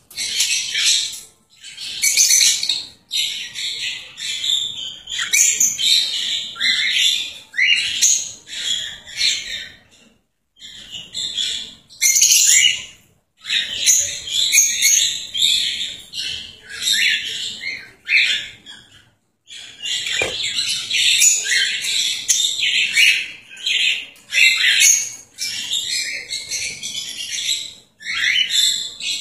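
Cockatiels chirping and calling in quick strings of short, high notes, with a few brief pauses.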